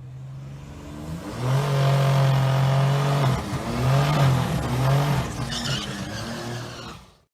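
1986 Buick Grand National's turbocharged 3.8-litre V6 revving. The engine note climbs about a second and a half in, holds, dips briefly twice, then drops back and fades out near the end.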